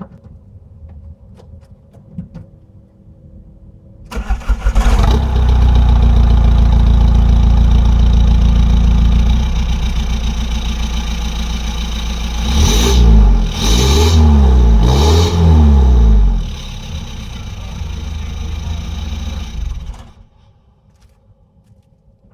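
Fiat Stilo 1.9 JTD 8V diesel engine with a straight-pipe exhaust and a GTB2056V turbo, cranking and starting about four seconds in, then idling. It is revved twice, each rev rising and falling, before settling back to idle and being switched off suddenly near the end.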